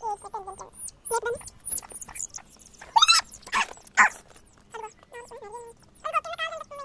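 Country chicken hen and newly hatched chicks calling: many short high peeps, with lower, fuller calls among them, and two loud rising cries about three and four seconds in.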